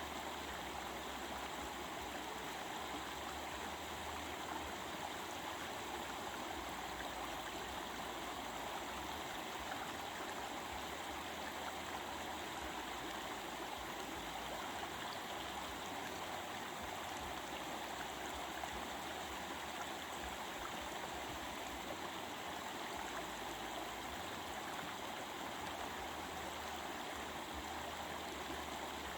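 A stream babbling steadily, an even, unbroken rush of running water.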